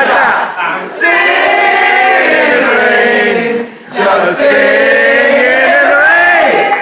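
A group of men and women singing together in long held notes, with a short break about halfway through and a downward slide near the end.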